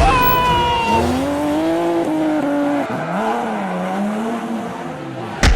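Vehicle motors whining, several tones at once gliding up and down in pitch as they change speed, with a sharp knock near the end.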